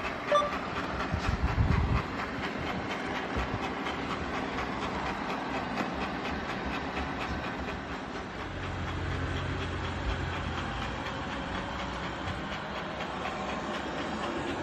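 Anker Eufy RoboVac 15C robot vacuum running with a continuous rapid rattling clatter, the abnormal 'ga-ga-ga' noise of unknown cause that removing and cleaning the brushes did not cure. A few low thumps come about a second in and again past the middle.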